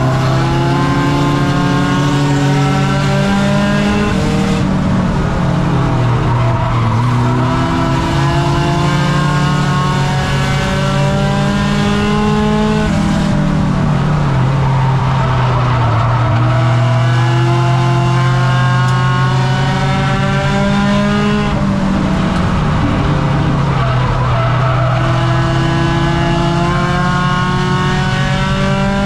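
Race car engine heard from inside the car during a heat race, its note climbing steadily down each straight and dropping as the car goes into the turns, repeating every eight seconds or so over several laps.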